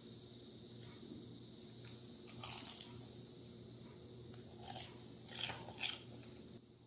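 Someone biting into and chewing food, with a few short crunches: a cluster about two and a half seconds in, then single ones near five and six seconds.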